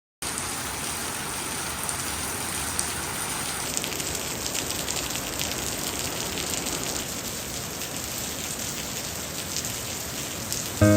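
Heavy storm rain pouring steadily: an even hiss with scattered fine drop ticks.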